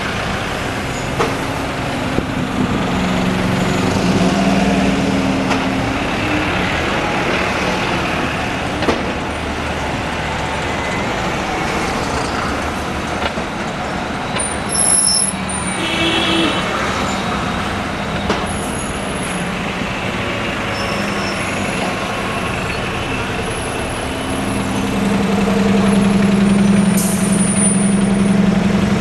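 City buses pulling away and driving past, their engines running with a steady low drone that grows louder near the end as a single-decker passes close by. There are brief high-pitched squeaks about halfway through.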